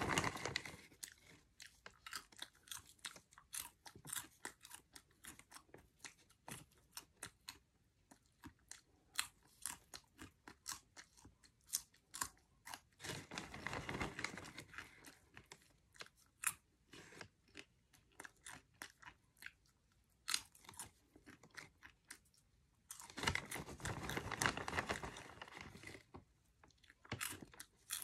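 Cheddar cheese popcorn being chewed: a run of crisp crunches and chewing clicks, with two longer, louder stretches of dense crunching or rustling, one about halfway through and one near the end.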